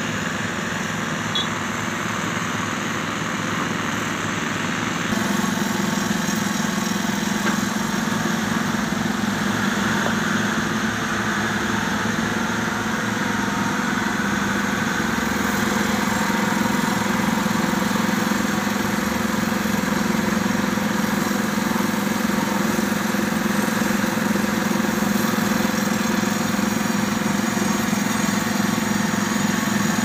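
Heavy diesel engines of an excavator and a tipper truck running steadily. The drone steps up louder about five seconds in and then holds steady.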